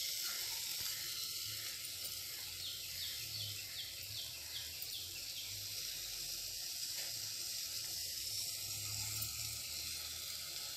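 Onion-tomato masala with coconut paste sizzling steadily in an aluminium pot on the stove. A short run of faint quick ticks comes a few seconds in.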